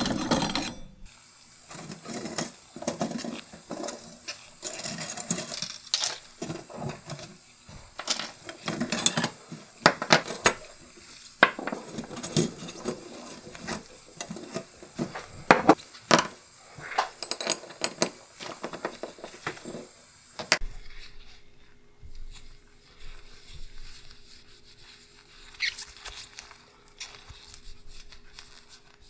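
Small metal watch parts and a stainless steel mesh cleaning basket clinking and rattling as gloved fingers handle them, in many quick light clicks. About two-thirds of the way through, this gives way to a quieter low hum with a few soft taps.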